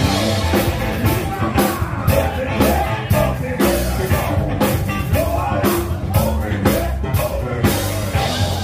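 Loud rock music with drum kit and guitar, a voice singing over it at times.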